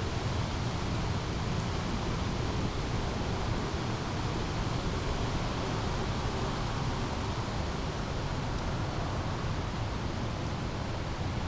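Small brook flowing steadily, an even rush of water with a strong low rumble underneath.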